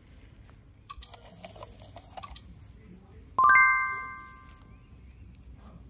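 A few short clicks and rustles, then a single sharp metallic strike that rings on with several tones and fades away over about a second and a half.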